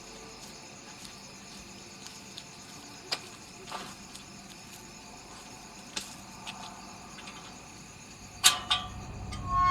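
Quiet night ambience with insects chirping steadily. A few sharp clicks or taps cut through it, the loudest pair about 8.5 seconds in.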